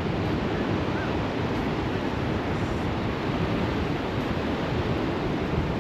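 Sea surf washing onto a sandy beach in a steady rush, with some wind on the microphone.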